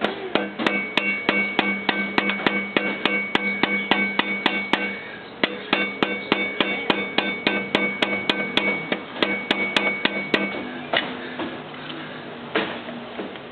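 Hammer blows on a soft copper tube used as a drift to knock out a Harley-Davidson Road King's rear axle: steady metallic strikes about three a second, each leaving a ringing tone. The strikes pause briefly about five seconds in, run on, then thin out to a few scattered blows near the end.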